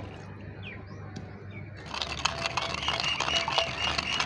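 Wooden pestle (danda) knocking and churning in a clay kundi bowl, mashing strawberries into milk for a hand-made milkshake. The rapid clicking knocks start about two seconds in.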